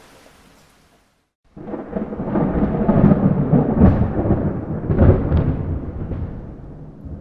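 A soft rain hiss fades into a brief dead silence about a second in. Then a loud thunderclap breaks in abruptly and rolls on as a deep rumble, with its strongest cracks around the middle, before slowly dying away near the end.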